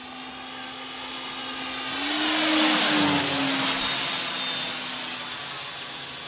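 Hanger 9 RV-8 radio-controlled model plane flying past: its motor and propeller whine swells to a peak about two and a half seconds in, then fades away, the pitch dropping as it passes.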